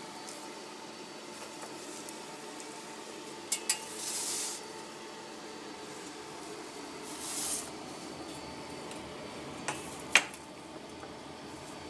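Roller Grill CT 3000 conveyor toaster running with a steady hum, while a pizza and plates are handled: two light clicks and a short scrape a few seconds in, another scrape about halfway, and two clinks of a plate near the end, the second the loudest.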